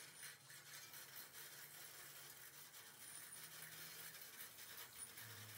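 Near silence: faint background hiss with a low hum.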